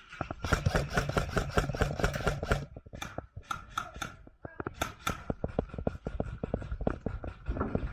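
Rapid runs of sharp clicks, typical of airsoft guns firing in full-auto bursts: one burst about half a second in, scattered shots around three seconds, and a longer burst from about five seconds in.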